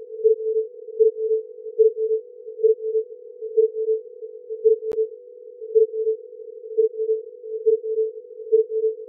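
A homemade electrocardiogram signal played as audio through a frequency shifter: a steady mid-pitched electronic tone that pulses with each heartbeat, a little more than once a second (about 70 beats a minute). A single faint click comes about halfway through.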